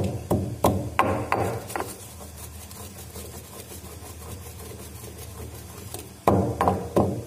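Black peppercorns being pounded with a stone pestle in a stone mortar: sharp stone-on-stone strikes at about three a second, with a quieter stretch of a few seconds in the middle before the pounding resumes.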